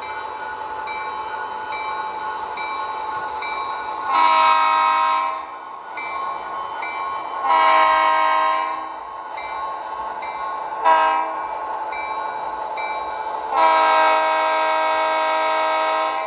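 Model diesel locomotive's DCC sound decoder sounding a multi-chime horn through its small speaker in a long, long, short, long pattern, the grade-crossing signal. A bell rings steadily and the diesel engine sound runs underneath.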